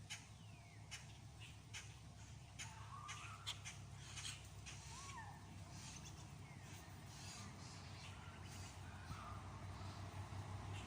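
Crows cawing, several short harsh calls in the middle, over a faint low steady rumble.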